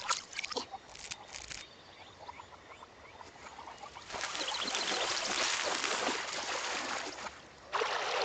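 Running water played in reverse: a few faint scattered clicks at first, then from about four seconds in a steady gush of brook water that cuts off shortly before the end.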